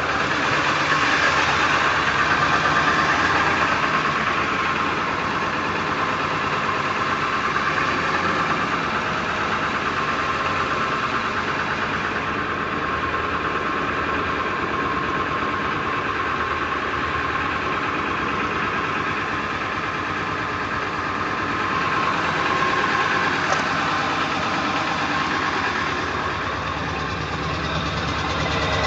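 1999 Ford F-350's 7.3L Power Stroke turbo-diesel V8 idling steadily after a cold start. The truck shakes badly at this idle though no check-engine light is on, and the owner cannot yet say why.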